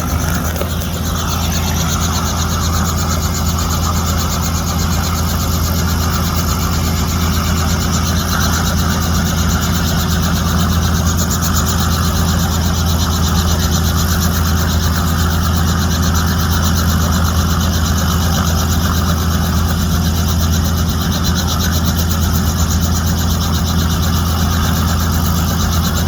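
Helicopter running on the ground close by: a steady, loud engine and rotor noise with a fast, even beat and a deep low drone.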